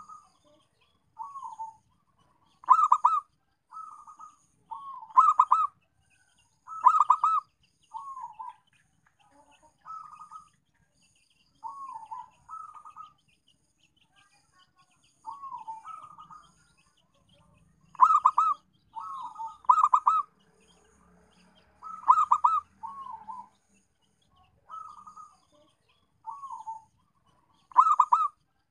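Zebra dove (perkutut) cooing: short soft coo notes, some sliding down in pitch and some broken into fast stuttering rolls, repeated every second or so in a running series with brief pauses.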